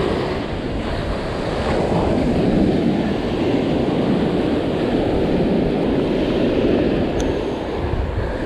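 Heavy surf breaking and washing up the sand, with wind noise on the microphone.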